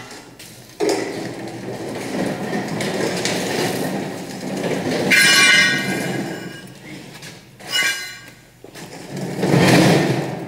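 Metal being handled in a welding shop: scraping and clattering with a short, high squeal about five seconds in and another loud scrape near the end.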